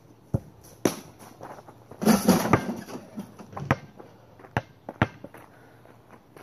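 Basketball bouncing on an asphalt driveway: single sharp smacks, a few seconds apart. About two seconds in comes a louder rough, rustling burst lasting about half a second.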